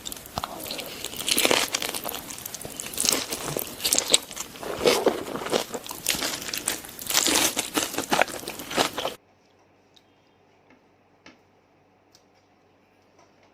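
Close, loud crunching and chewing of crisp fried food, many sharp crunches in quick succession, cutting off suddenly about nine seconds in; after that only faint small mouth clicks.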